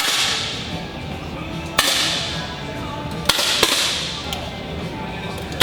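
10 m air rifles firing: four sharp pops at uneven intervals, each trailing off in a short hissing echo, with fainter clicks in between.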